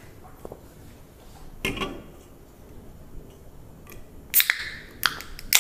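Aluminium beer cans being handled and opened: a soft knock about two seconds in, then sharp clicks with short fizzing hisses near the end, the loudest at about four and a half and five and a half seconds, as a can's tab is cracked and beer is poured into a glass.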